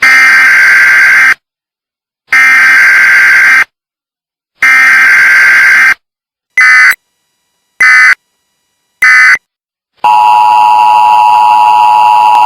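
Emergency Alert System tones: three long, loud buzzing SAME data bursts, then three short ones, all separated by silence. About ten seconds in comes the steady two-tone EAS attention signal.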